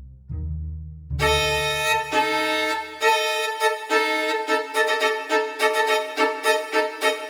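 Background music: low held notes at first, then a bright melody entering about a second in that moves into quickly repeated short notes.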